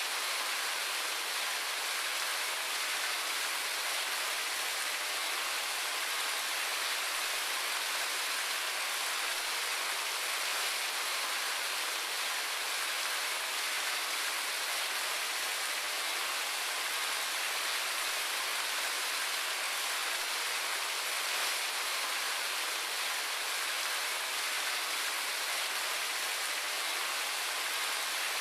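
Indoor water fountain running: a steady splashing trickle of falling water, an even hiss with little low rumble.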